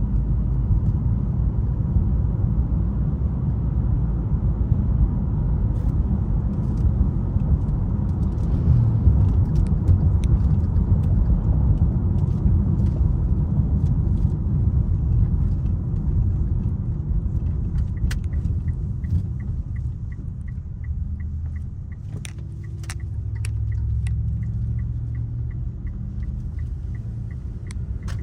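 Steady low road and engine rumble inside a moving car's cabin. About two-thirds of the way in, the turn-signal indicator starts ticking evenly, just under two ticks a second.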